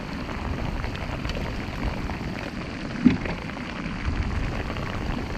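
Steady rain falling, with wind rumbling on the microphone, and one short louder sound about three seconds in.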